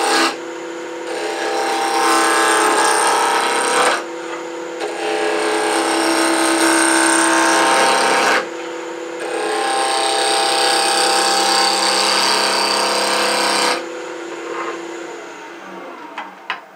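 Wood lathe spinning a hardwood blank at about 2,000 rpm while a gouge rounds it: three long passes of loud cutting noise, with the lathe's steady hum between them. Near the end the cutting stops and the lathe winds down, with a couple of clicks.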